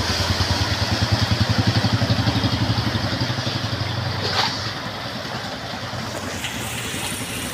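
Motorcycle engine running close by as it rides through floodwater, with a loud pulsing exhaust. After about four and a half seconds it fades, leaving a steady hiss of rain and running water.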